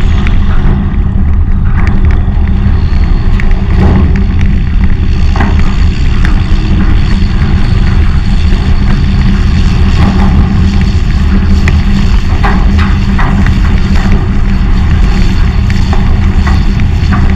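Heavy farm machinery's diesel engine running steadily on the road, a loud constant low rumble with wind on the microphone and occasional rattles and knocks from the machine.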